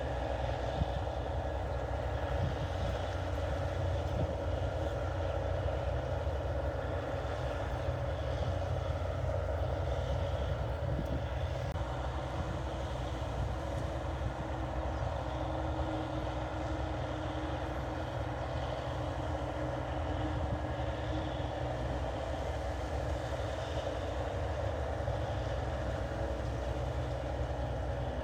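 New Holland 8080 combine harvester running steadily while cutting rice: a constant engine and machinery drone with no change in pace.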